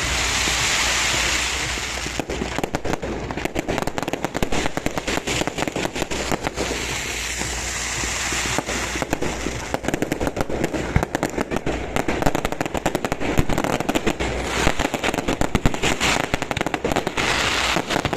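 Aerial fireworks display: a hissing rush for the first couple of seconds, then dense rapid crackling and popping from many shells bursting at once.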